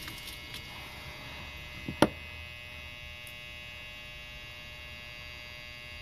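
Steady electrical mains hum, with one sharp click about two seconds in from small metal lock parts being handled.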